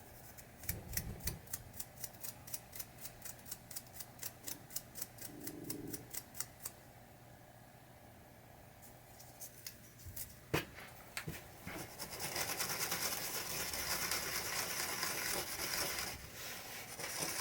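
Small parts being worked by hand: a run of quick light strokes, about five a second, for several seconds, then a sharp knock, then a steady hissing rub for the last five seconds or so, typical of wiping a part clean with an alcohol-soaked cloth.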